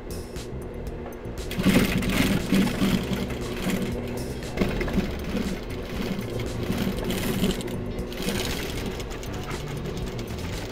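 Industrial lockstitch sewing machine running, stitching nylon webbing onto denim. It starts up about a second and a half in and runs on with a steady rhythmic stitching pulse.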